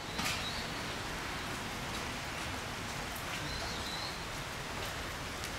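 A steady, even hiss like falling rain, with a few faint clicks.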